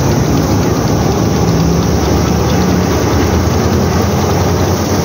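A tractor-driven wheat thresher running steadily under load: a loud, even mechanical din of the threshing drum, belts and pulleys, with the Massey Ferguson 240's three-cylinder diesel engine droning underneath.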